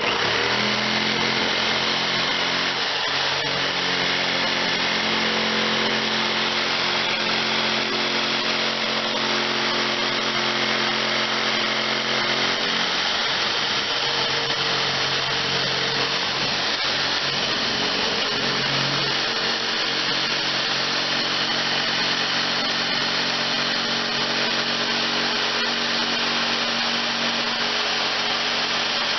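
A power tool running continuously under load, its pitch shifting slightly now and then.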